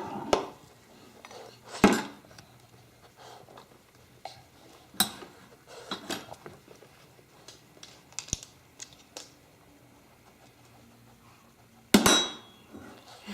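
Dishes and cutlery clinking and clattering as a dishwasher is unloaded: scattered sharp knocks a second or two apart, with a louder clatter near the end.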